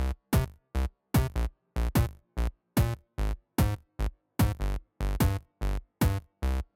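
Electronic background music with a chopped, stop-start beat: short punchy hits about three a second, each cut off by a brief gap of silence.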